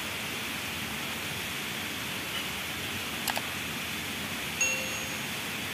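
Steady outdoor background hiss with no calls, broken by a couple of faint clicks a little over three seconds in and a brief pitched tone near the end.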